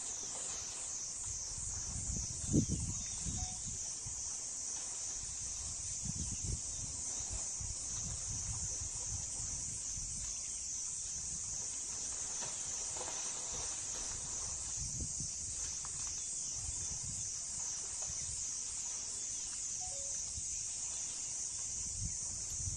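A steady, high-pitched chorus of insects with a fast shimmering pulse, and low rumbles of wind on the microphone now and then, the strongest about two and a half seconds in.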